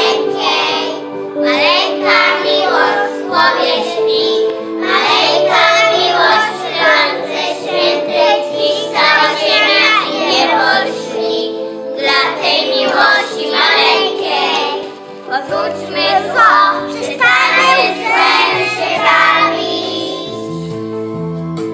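A group of young children singing a song together over instrumental backing music with steady held notes.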